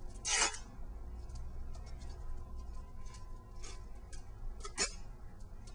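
Tape pulled off the roll in two short rips, one just after the start and one near the end, with faint crinkling and ticking of tape and foam being handled in between.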